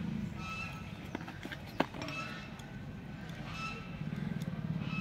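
A single sharp metallic clink about two seconds in, as a small steel planer part or screwdriver is set down on a wooden board, over a steady low hum.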